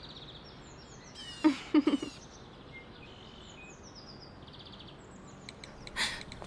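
Small birds chirping and trilling over and over in the background, with a young woman's short giggle about a second and a half in and another brief laugh near the end.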